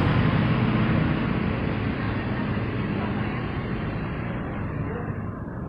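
A bus driving past: engine and road noise, loud at first and fading steadily as it moves away.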